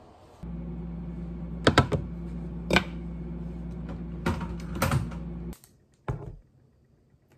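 Steady electric hum of a running kitchen appliance, with several sharp clinks of ceramic bowls being handled on the counter. The hum cuts off suddenly near the end, and one more clink follows.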